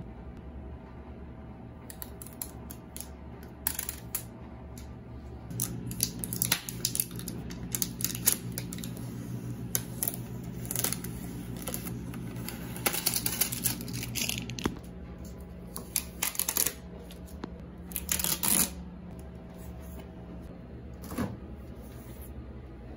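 Protective tape being peeled and picked off a new refrigerator's textured metal top: a long run of quick crackling rips and plastic crinkles over a steady low hum. Near the end, one click as the freezer door is pulled open.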